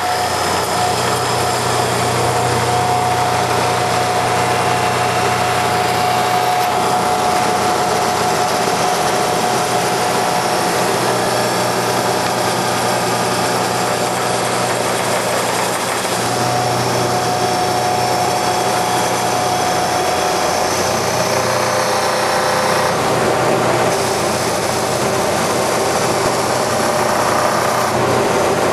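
Hydraulic automatic copy wood lathe running: a loud, steady machine drone with a low hum and a whining tone that fades in and out twice.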